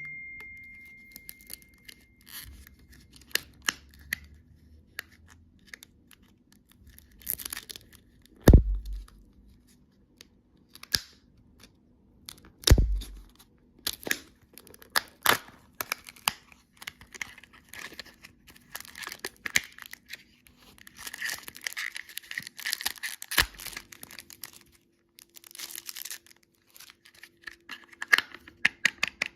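Candy packaging being handled: plastic wrappers crinkling and tearing amid many small clicks and taps, with two heavy knocks about eight and thirteen seconds in.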